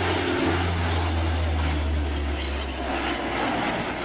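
Four-turboprop engines of a Lockheed CP-140 Aurora in a flypast: a low propeller drone over a broad rushing engine noise. The drone drops in pitch about half a second in and fades near the end as the aircraft passes and moves away.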